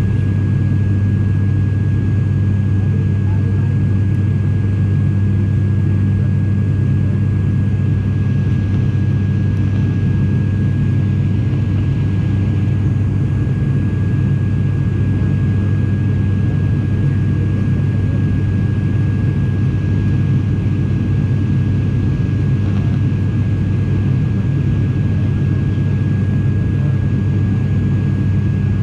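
Steady drone of an airliner in flight: a strong low hum with a thin high whine held steady over it, unchanging throughout.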